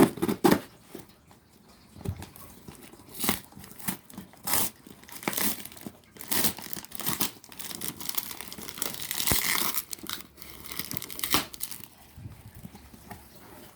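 Packing tape being ripped off a cardboard box, in a run of irregular tearing and crinkling noises, the longest rip about two thirds of the way through.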